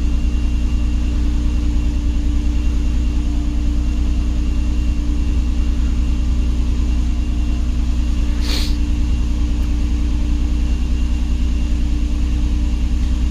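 2007 Nissan Murano's 3.5-litre V6 idling steadily, with a short hiss a little past the middle.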